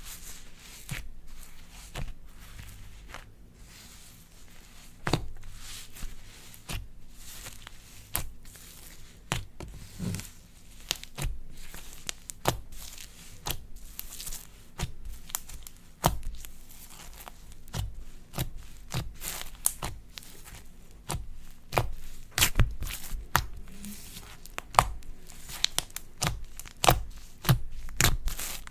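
Slime being kneaded, stretched and pressed by hand: irregular sticky pops, crackles and clicks, now single, now in quick clusters, busier in the second half.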